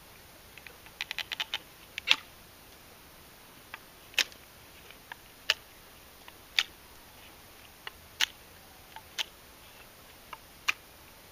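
Elmax-steel knife cutting into a dried bamboo stalk, with sharp cracks roughly every second as the blade bites in. A quick run of small clicks comes about a second in.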